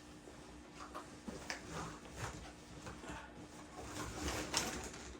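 Scattered short clicks and knocks as parts of a Hoover SmartWash carpet cleaner are handled and fitted together, the loudest about four and a half seconds in.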